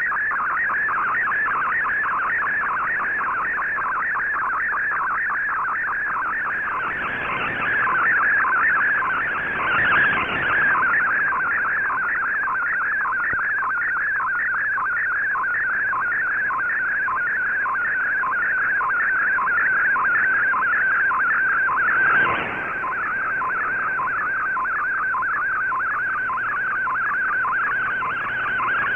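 Shortwave Radiogram MFSK picture transmission on 15770 kHz, heard through an Icom IC-R8600 in AM mode. It is a rapid, regular warbling data tone around one and a half kilohertz over band hiss: the signal Fldigi decodes into an image line by line. Static swells up briefly a few times, about a quarter of the way in and again around three quarters.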